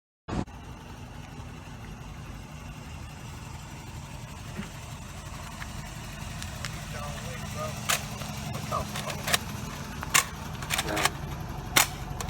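Steady hum of a moving car's engine and road noise, with several sharp clicks in the second half as a Nerf blaster fires.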